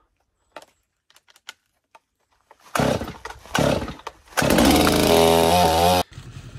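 Holzfforma G255 45.4cc two-stroke chainsaw engine. About three seconds in it revs in two short bursts, then is held at rising, then high, revs for about a second and a half before stopping abruptly.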